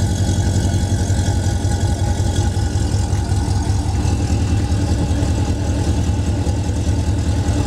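Chevrolet Corvette C6's 6.0-litre LS2 V8 idling steadily, heard at its quad exhaust tips.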